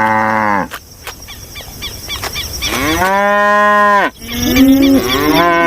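Cow mooing: three long moos, the first ending about half a second in, the second about three seconds in, and the third starting just before the end.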